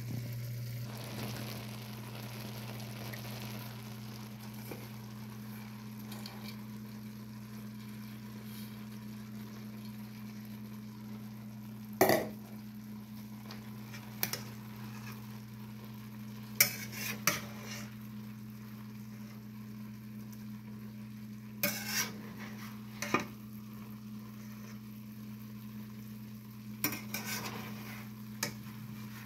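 Food sizzling softly in a metal wok as cooked quinoa is scraped in and stirred with a spatula, the spatula clanking sharply against the pan about nine times in the second half. A steady low hum runs underneath.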